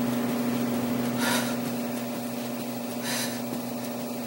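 A woman doing plank jacks on a mat, with two short hissing noises about two seconds apart as she moves, over a steady low room hum.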